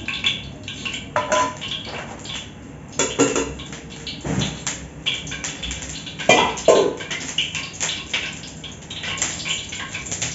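Metal pots, pans and utensils clattering: a run of irregular knocks and clanks, some ringing briefly.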